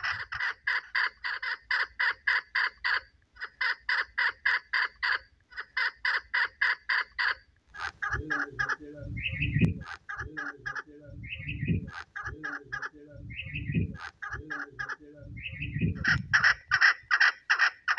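Female chukar partridge calling in rapid runs of repeated sharp notes, about four a second. Between about 8 and 16 seconds the runs give way to a deeper, swelling sound repeating every second or so, mixed with short higher notes, before the rapid calling resumes.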